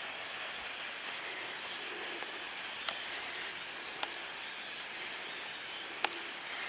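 A huge flock of small blackbirds calling all at once in the trees, a continuous screaming chatter of thousands of birds. A few sharp ticks stand out about three, four and six seconds in.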